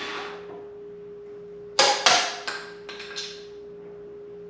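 A run of sharp, ringing knocks from hand-tool work on a pine 2x4 sawhorse crosspiece: two loud strikes close together about two seconds in, then three lighter taps.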